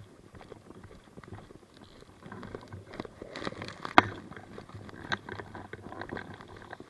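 Footsteps and kit rustling as a player moves, with many small clicks, and one sharp crack about four seconds in.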